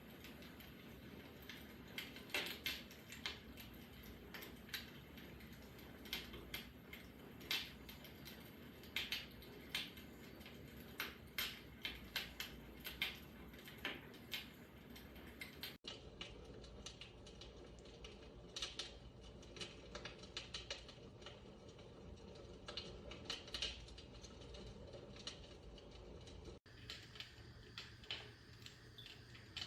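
MSELTOS fireplace crackler sound box playing its recorded fire crackle through its speaker: faint, irregular snaps and pops of burning logs over a low hiss.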